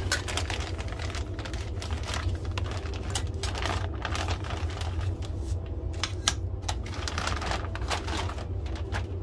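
Clear plastic bag crinkling and crackling in irregular bursts as it is pulled off an aluminium stand tray, over a low steady hum.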